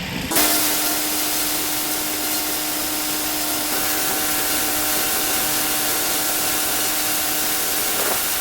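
Pressure washer spraying a dirty driveway: a steady hissing spray with the machine's constant hum underneath, starting abruptly just after the start.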